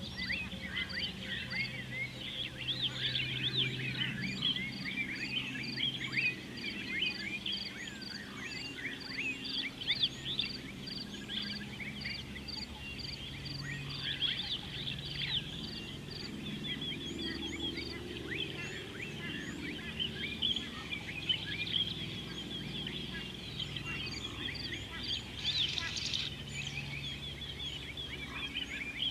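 Many wild birds chirping and trilling together in a busy chorus. Through about the first half one high note repeats in an even rhythm, two or three times a second, then stops.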